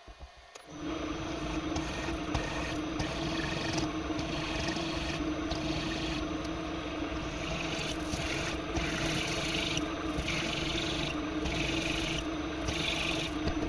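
Drilling machine spindle running with a steady motor hum while a countersink bit cuts a chamfer into an aluminium block. In the second half, about six regular bursts of harsher cutting noise, roughly one a second, as the countersink is fed into the metal. It stops abruptly at the end.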